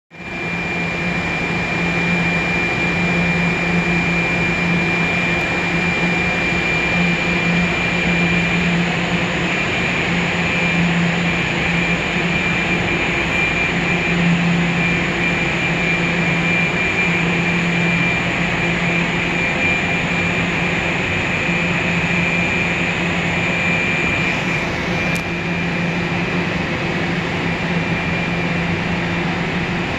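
Steady machinery hum and hiss of an empty underground subway station, with a thin high whine over a low hum; the highest hiss eases off about 25 seconds in.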